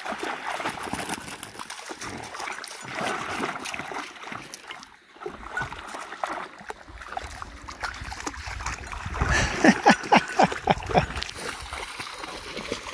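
Dogs wading and splashing through shallow lake water over stones, with a quick run of loud splashes about two-thirds of the way in as one bounds through the water.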